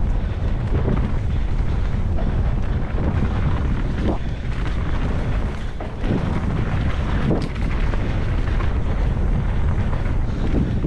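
Wind rushing over the microphone on a mountain-bike descent, with a steady low rumble from the bike rolling over the trail and a few sharp knocks as it hits bumps.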